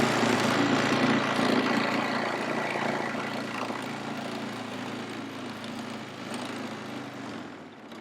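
An engine running steadily, fading away over several seconds.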